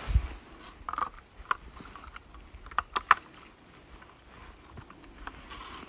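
A low thump, then scattered sharp clicks and knocks as the blade guard is fitted back onto the blades of a hand ice auger.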